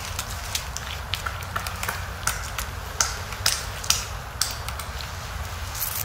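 Three-toed woodpecker flaking bark off a pine trunk with its bill while foraging for insects: irregular dry crackles and clicks, thickest and loudest in the middle.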